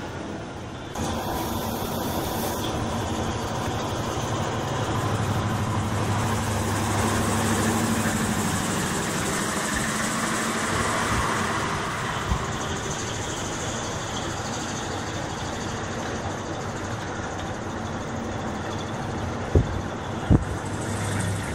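Hino Profia dump truck with a split ("mani-wari") exhaust manifold driving close alongside and then pulling ahead. Its steady low engine note swells in the middle and then eases off, over the road rumble of the truck cab it is heard from. A couple of sharp knocks come near the end.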